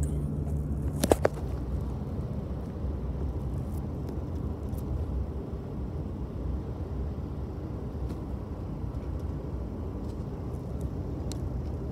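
Steady road and engine noise inside a moving car's cabin, a low rumble with hiss, with two sharp clicks about a second in.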